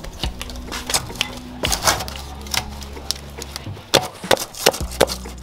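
A wooden paddle stirring and beating thick tuo zaafi dough made from corn flour and cassava flour in an aluminium pot. It gives irregular sharp knocks and scrapes against the pot, the loudest several in quick succession near the end.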